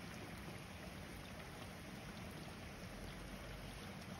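Steady rain falling on a street, an even hiss of drops. A low rumble comes in near the end.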